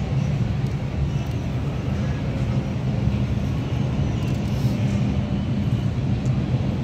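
Steady low rumble and hum of an underground subway station, with a subway train standing at the far platform. The level holds steady, with no train pulling in.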